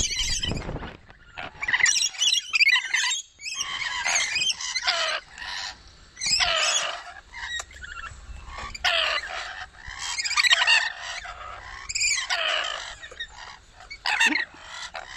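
A flock of lorikeets screeching while they feed on nectar: harsh squawking calls, many in a row, with brief gaps between bursts.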